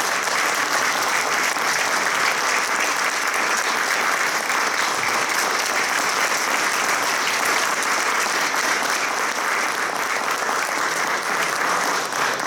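Steady applause from a roomful of people clapping.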